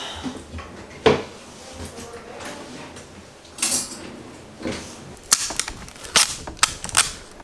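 Kitchen items being handled and put away: scattered sharp knocks and clatters of containers on a counter and in a drawer, with a short rustle in the middle and a quick run of crisp clicks near the end as a foil lid is peeled off a plastic cup.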